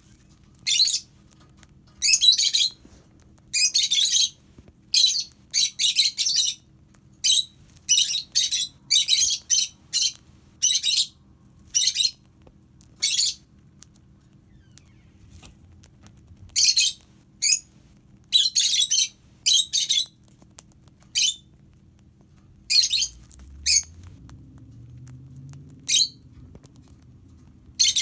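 Rosy-faced lovebird giving short, shrill chirps in quick clusters, with a few pauses of a second or two between runs.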